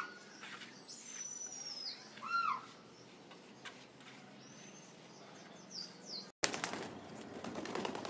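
Birds chirping in short arched calls, with one long falling whistle in the first two seconds and a few high chirps near six seconds. Then, from about six and a half seconds, a rush of wing flaps and scuffling from pigeons around their brick coop.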